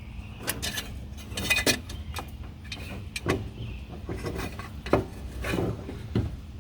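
Hand work on car parts: a string of irregular light clicks, taps and scrapes as metal and plastic pipe fittings and tools are handled, with a faint steady hum under them.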